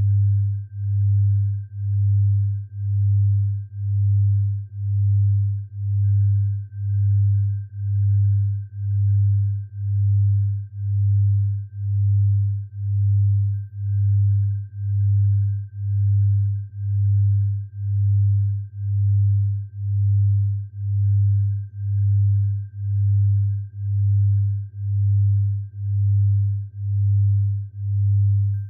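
Synthesized low pure tone for tinnitus sound therapy, swelling and fading evenly about once a second, over a faint steady high tone.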